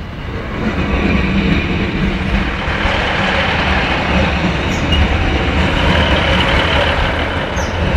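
Class 156 Sprinter diesel multiple unit passing at close range over a level crossing, its diesel engines running with the rumble of wheels on the rails. It grows louder over the first second, then holds a steady drone as the coaches go by.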